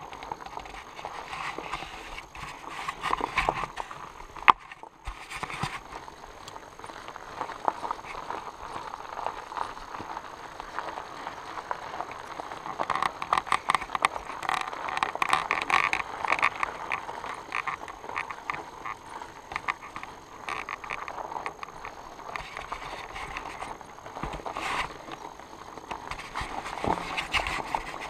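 Fat-bike tandem riding over a rough, stony dirt track: continuous irregular rattling and clattering as the fat tyres roll over stones and the bike and camera mount shake. A single sharp knock comes about four and a half seconds in.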